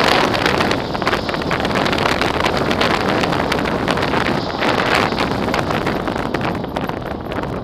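Wind buffeting the microphone of a camera on a moving motorcycle at road speed, over the low rumble of the bike's engine and tyres. The noise eases off a little near the end.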